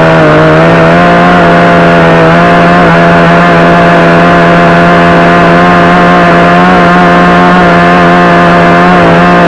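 62cc two-stroke chainsaw running at full throttle, held at a steady high pitch while cutting into a branch.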